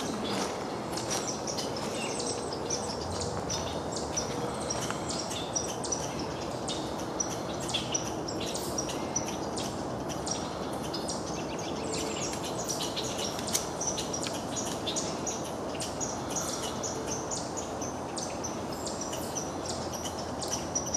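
Steady rush of flowing creek water, with small birds chirping repeatedly over it.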